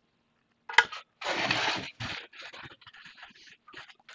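A sharp click, then about a second of scraping and rustling followed by several smaller scrapes and knocks: the noise of handling the circuit board and vise while the board is turned to a new angle for soldering.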